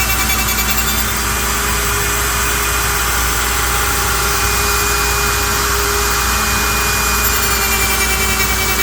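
Router on a CNC rotary lathe running steadily, cutting a spinning curly maple blank: a loud, steady whine over the noise of the cut.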